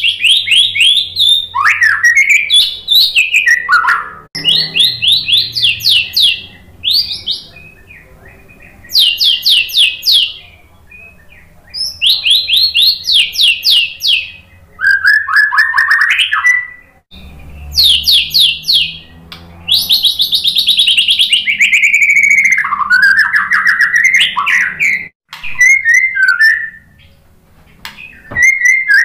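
White-rumped shama singing loud phrases: fast runs of rapidly repeated high notes alternating with rich whistles that slide down and up in pitch, with brief pauses between phrases.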